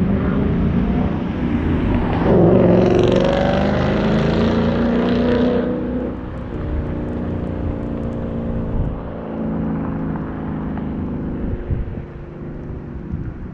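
2015 Ford Mustang GT's 5.0-litre V8 under hard acceleration, loudest from about two to six seconds in, then backing off to lower revs and running on more quietly.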